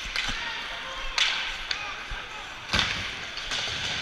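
Live ice hockey play close to the boards: skates scraping across the ice under a sharp clack of stick and puck, then a louder crack and a heavier bang about three-quarters of the way through, sticks, puck and boards taking hits.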